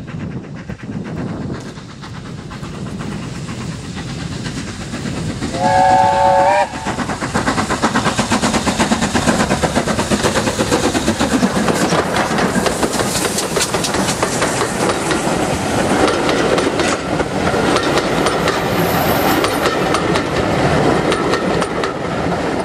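Double-headed steam train, BR Standard Class 5 4-6-0 No.73096 and GWR Hall 4-6-0 No.4953 'Pitchford Hall', approaching and giving one steam whistle blast of about a second, about six seconds in. It then passes close with a steady run of clickety-clack from the wheels over the rail joints as the locomotives and carriages go by.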